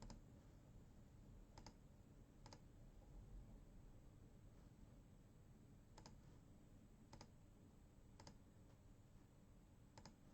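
Computer mouse clicking: seven faint, single clicks at uneven intervals over near-silent room tone.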